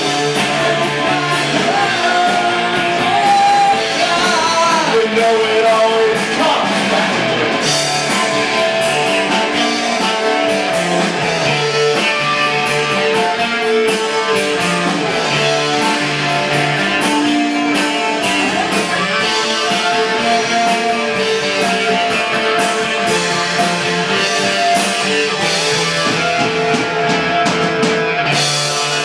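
A rock band playing live, with electric guitar and bass guitar over a steady beat of percussive hits.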